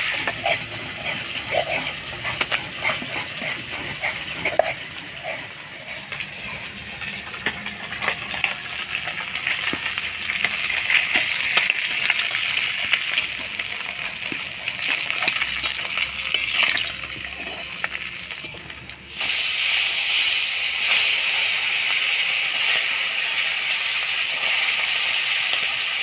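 Whole small China puti fish (silver barb) frying in hot oil in a karai: a steady sizzle with many small crackles and pops. About two-thirds of the way through the sizzle turns suddenly louder and stays there.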